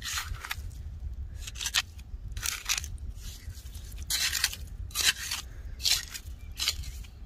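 A hand digging tool scraping and crunching through wet, shelly sand in about nine short, quick strokes, raking up the top layer to uncover clams, over a low steady rumble.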